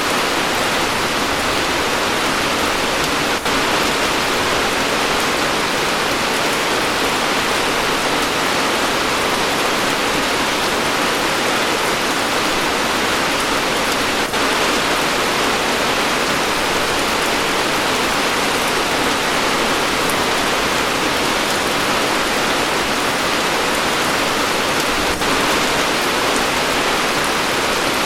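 Heavy rain falling steadily: a dense, even hiss of rain on a surface, with a barely noticeable brief dip about every eleven seconds.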